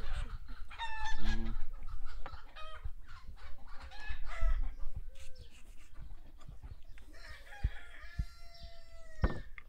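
Chickens clucking in short repeated calls, then a rooster crowing in one long call near the end. A single sharp knock comes just before the end.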